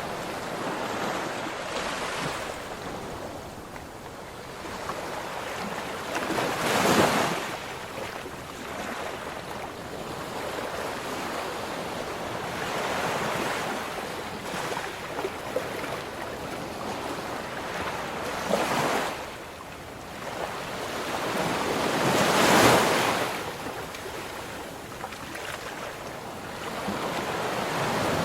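Ocean surf: waves breaking and washing up the shore, swelling and fading every few seconds, with two louder breakers about a quarter and three quarters of the way through.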